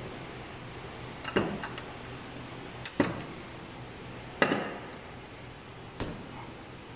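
Vinyl electrical tape being pulled off its roll and wrapped around a wire splice: four short sounds about a second and a half apart, each trailing off briefly.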